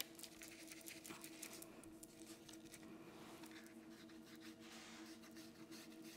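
Faint, irregular scratchy strokes of a paintbrush dry-brushing paint onto a craft piece, over a steady low hum.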